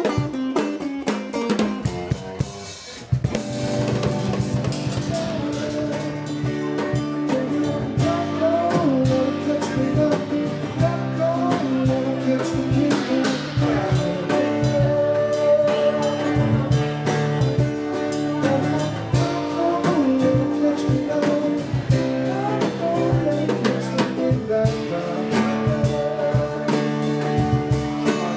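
A live acoustic trio plays: two acoustic guitars strumming over a drum kit. The music dips briefly about three seconds in, then runs on steadily.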